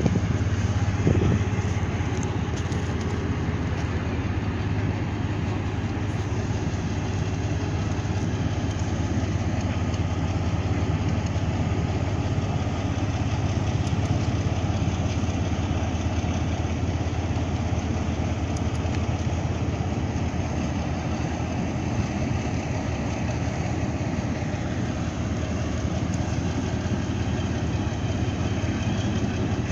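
A large ship's engine running steadily with a deep, even hum. There are a few short knocks in the first second or so.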